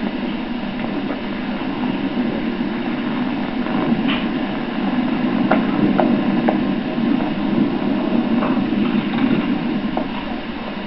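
Steady low background hum and rumble, with a few faint taps around the middle.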